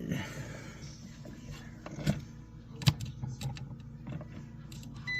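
Scattered light knocks and clicks of something being handled, over a low steady hum, with a short high electronic beep right at the end.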